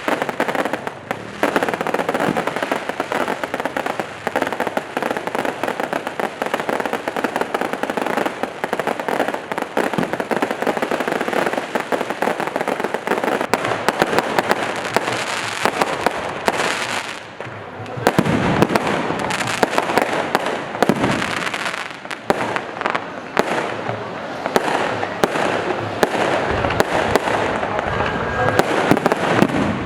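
A dense fireworks display: rapid, continuous cracks and bangs of many shells bursting together. It eases briefly a little past halfway, then builds again.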